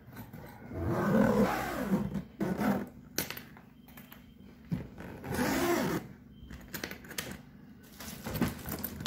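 Hard-shell VIP Aristocrat trolley suitcase rolled on its four spinner wheels over a floor, in two passes about a second long and some four seconds apart, with a few sharp clicks of the plastic shell between them.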